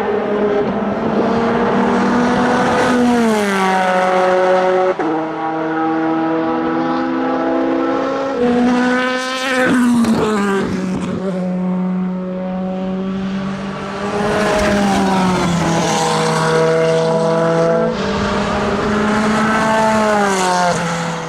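Audi R8 LMP's twin-turbo V8 racing engine running hard at trackside, its note holding steady and then dropping in sudden steps as it changes gear, with one quick rise and fall about halfway through.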